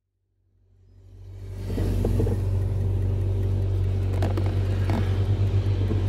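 A car's engine and road noise heard from inside the moving car's cabin: a steady low rumble that fades in over the first two seconds after a brief silence, with a couple of faint clicks later on.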